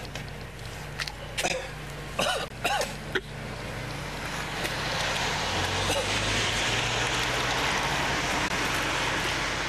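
A few short coughs and groans from people with pepper spray in their eyes in the first three seconds. Then a steady rushing noise of a car on the road builds up and holds.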